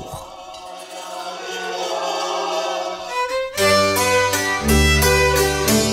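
A steady ringing drone from coins swirled around inside earthenware bowls (Appenzeller Talerschwingen). About three and a half seconds in, an Appenzeller string band takes over, with violin, Hackbrett (hammered dulcimer) and double bass playing a lively tune.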